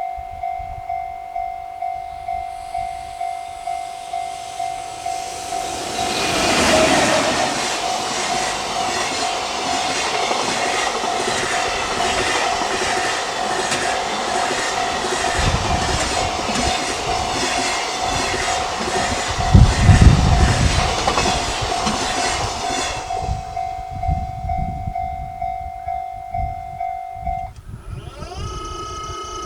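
A long freight train hauled by an EH500 electric locomotive passes at speed, loud from about 6 s to 23 s, with rapid, even wheel clacking over rail joints. Throughout, a level-crossing warning bell rings steadily about twice a second, stopping near the end.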